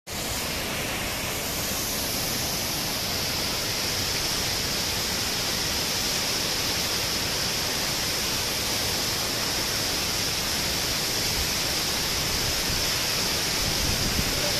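Large waterfall: a steady, even rush of falling water.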